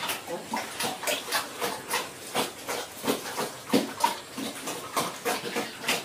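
A pig eating wet feed from a trough: rapid, irregular wet smacking and slurping, several chomps a second.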